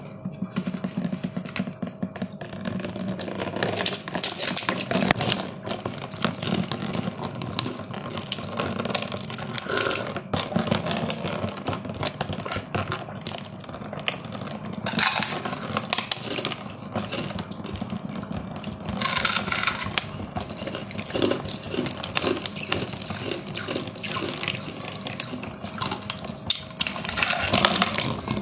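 Crinkling plastic wrap around a block of frozen yellow ice, and the ice being bitten and crunched, with louder spells of crackling every few seconds.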